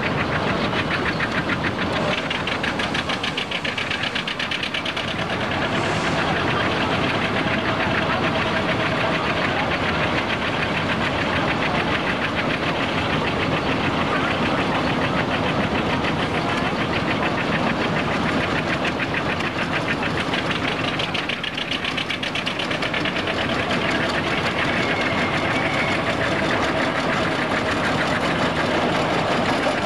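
Small narrow-gauge internal-combustion locomotive engine running steadily as the locomotive moves along the track, with a rapid, even beat of firing strokes.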